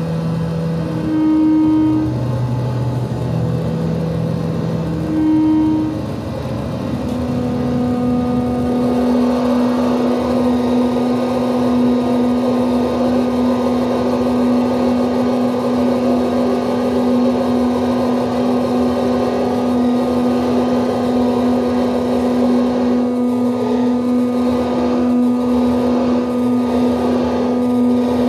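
Electronic drone of steady pure tones. For the first few seconds short held tones sound at several different pitches. From about seven seconds in, one low tone is held steadily under a thick, dense wash of higher sound.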